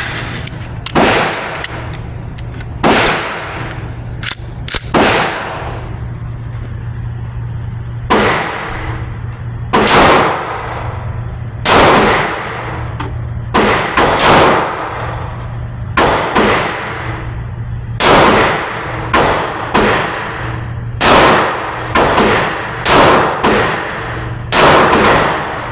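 A Hi-Point C9 9mm pistol firing a slow string of shots, roughly one to two seconds apart, each shot followed by a ringing decay.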